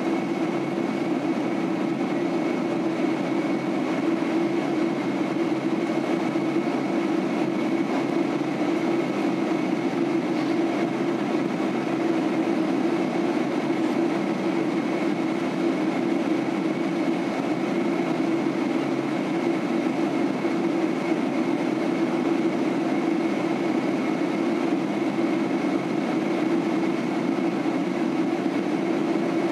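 Steady cabin noise inside a Boeing 767-300 airliner in flight: the constant drone of engines and rushing air, with a strong low hum and a faint high tone.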